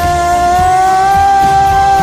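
Instrumental backing music of a pop ballad: one long held note, rising slightly in pitch about a second in, over a low pulsing beat.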